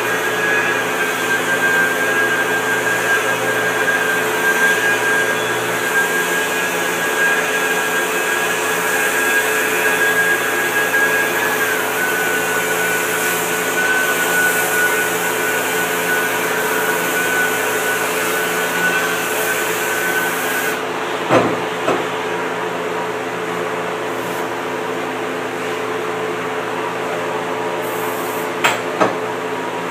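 Handheld power sander with a foam-backed sanding disc running on a glassed surfboard, a steady whine whose pitch dips slightly as it is pressed into the work. The whine stops about two-thirds through, leaving a steady machine drone, with a few sharp knocks just after it stops and again near the end.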